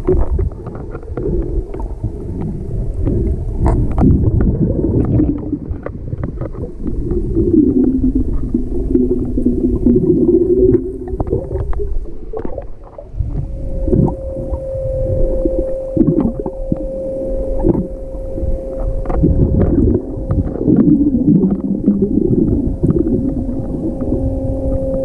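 Muffled underwater sound picked up by a GoPro in its waterproof housing: a continuous low rumble of water moving past the camera, with scattered sharp clicks. About halfway a steady hum joins and holds.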